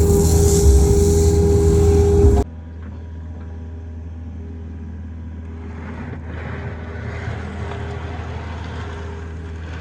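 Kobelco SK55 mini excavator's diesel engine running steadily, loud at first, then dropping suddenly about two and a half seconds in to a quieter, steady drone.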